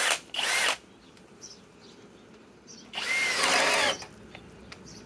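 Master Force Boost cordless hammer drill in high-speed gear boring a 1-inch spade bit into a wooden board. It runs in three short spurts, the longest about three seconds in; each opens with a rising whine and stops abruptly. The drill is cutting out under the load.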